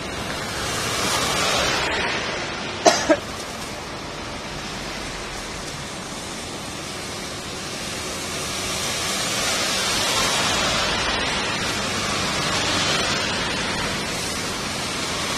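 Heavy rain and tyres hissing through standing rainwater as cars pass on a flooded road. The hiss swells as vehicles go by. Two short, sharp blips sound close together about three seconds in.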